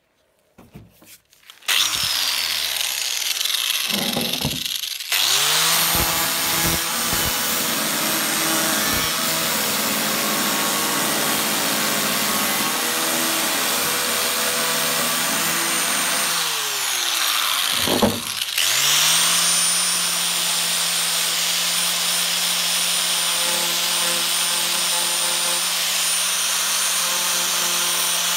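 Electric angle grinder running against fibreglass, grinding a V-groove along a crack to take out the sharp edges and butt join so the crack can be glassed over. It starts up about two seconds in, winds down about two-thirds of the way through, then spins back up and runs steadily.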